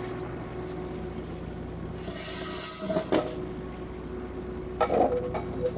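Metal knocks and clinks as a removed gas burner head is handled and set down on a metal stand: one knock about three seconds in, then a cluster of clinks near five seconds. A steady hum runs underneath.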